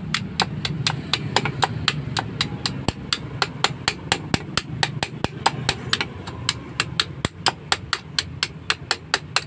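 Rapid, evenly paced metal tapping, about four strikes a second: a hammer knocking on the back of a cutter blade to chop through a wire on a motorcycle's magneto stator.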